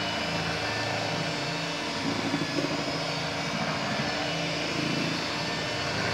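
Handheld electric mixer running steadily, its beaters whisking a wet mixture in a plastic bowl.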